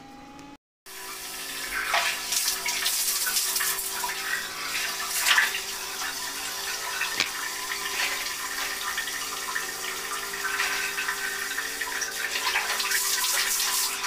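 Water running and splashing as a face is washed by hand, with irregular splashes over a steady flow; it starts after a brief break just under a second in.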